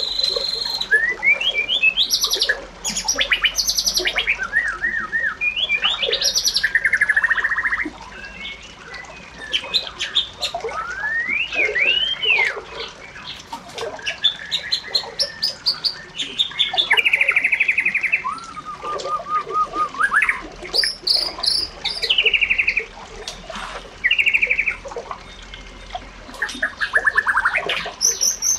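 A bird singing a long, varied song of whistled slurs rising and falling, buzzy trills, rapid repeated notes and harsh squawks, in phrases about a second or two long with short gaps between them.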